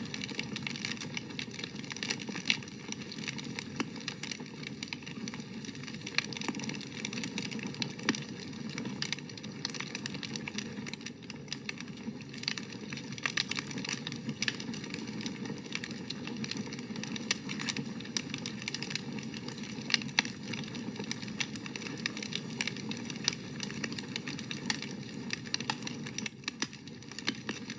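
Wood campfire burning: a steady hiss and rustle of flames with frequent crackles and sharp pops of burning wood, a few pops standing out louder.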